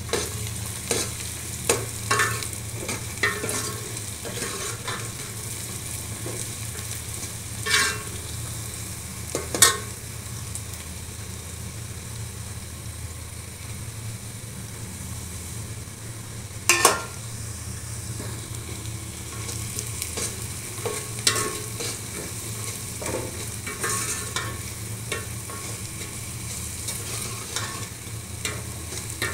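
Onions, garlic and wadi (sun-dried lentil dumplings) sizzling in hot oil in a steel pot, with a steel ladle stirring and scraping against the pot. Sharp metal scrapes and clinks come at intervals, the loudest about eight, ten and seventeen seconds in.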